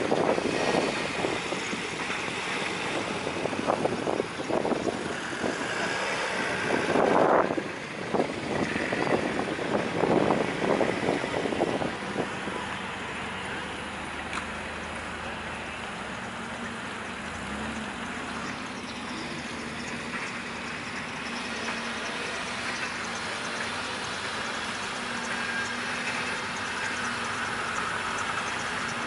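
Classic cars driving slowly past in a line, their engines running at low revs. The sound is louder and more uneven for roughly the first twelve seconds, then settles into a steadier, quieter engine hum.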